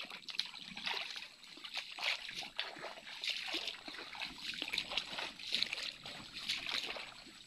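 Water splashing and trickling, with many irregular small splashes over a steady wash.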